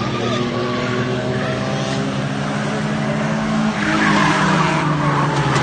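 Race car engines running on a speedway, with tyre noise; the sound gets louder about four seconds in.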